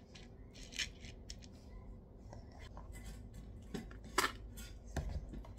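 A spoon scraping and clinking against a stainless steel bowl as a wet pet-food mixture is scooped out and dropped into pet bowls. A few scattered short scrapes and clinks, the loudest about four seconds in.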